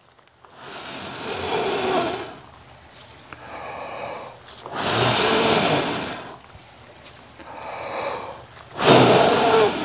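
A man blowing hard by mouth onto partly lit charcoal briquettes in a smoker's charcoal basket to feed air to the fire: three long, breathy blows, each a second or more, with quieter breaths between.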